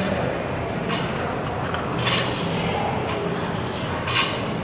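Loaded barbell clinking and rattling with each hang power snatch, a short sharp burst about every two seconds, over a steady low hum.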